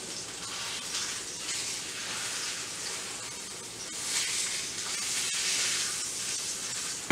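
Beef rump roast searing in a hot frying pan, its freshly turned side sizzling steadily. The sizzle swells louder about four seconds in, then eases back.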